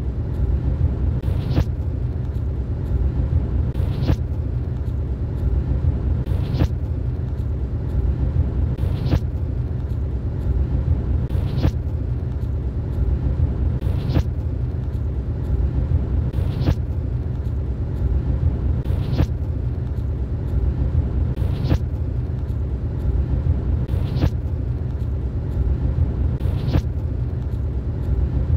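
Car driving along a road, heard from inside the car: a steady low rumble of engine, tyres and wind. A faint tick comes about every second and a quarter.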